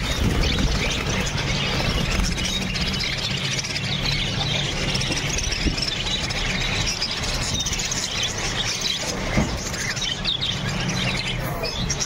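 Many caged budgerigars chattering at once: a continuous din of quick chirps and squeaky calls, over a steady low hum.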